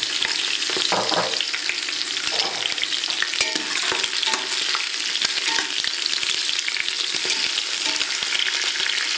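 Chunks of carrot, celery, onion and leek sizzling in hot oil in a stainless steel pot as they start to brown, turned with metal tongs that click against the pot now and then.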